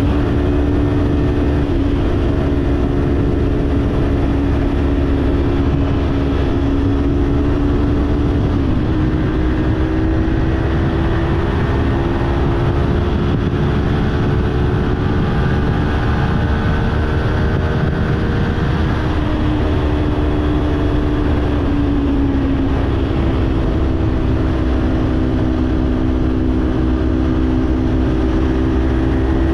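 Kawasaki parallel-twin motorcycle engine with an aftermarket slip-on exhaust running at a steady cruise. Its pitch steps up slightly about nine seconds in and eases back down around twenty seconds in, over a steady low rumble of wind and road.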